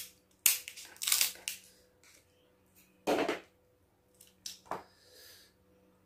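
Boiled crab shell being cracked and broken apart by hand: a handful of short, sharp crunching cracks, the loudest in the first second and a half and around three seconds in.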